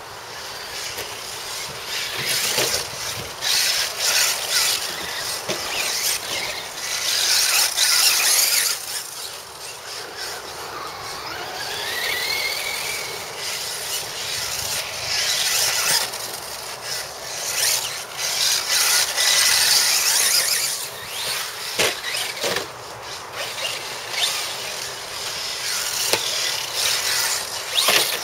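Electric radio-controlled cars, an off-road buggy and a short-course truck, whining in repeated surges as they speed up and slow down, with a rising whine about twelve seconds in. A few sharp knocks come later on.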